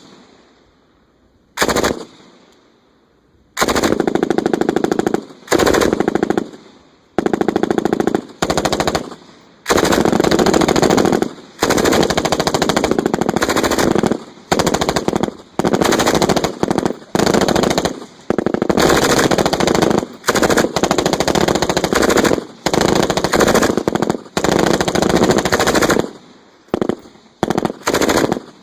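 Several M249 Squad Automatic Weapons, belt-fed 5.56 mm light machine guns, firing bursts on a range, the guns overlapping. After a couple of short bursts in the first few seconds, the firing becomes almost constant, with bursts of about half a second to two seconds.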